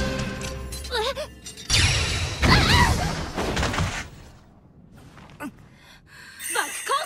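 Dramatic anime soundtrack: music, then a heavy sword-strike impact about two seconds in, with short pained cries around it. It drops to a quieter stretch, and another short cry comes near the end.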